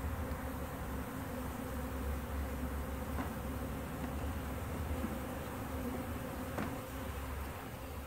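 Honey bees buzzing steadily around an opened hive, a constant hum with a couple of faint clicks midway.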